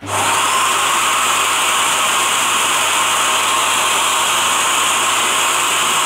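Dyson Cinetic Big Ball canister vacuum cleaner switching on abruptly and running with a steady, loud rush of airflow. Its floor head's brush roll is spinning again, now that a ball of hair wound tight behind the drive mechanism has been cleared.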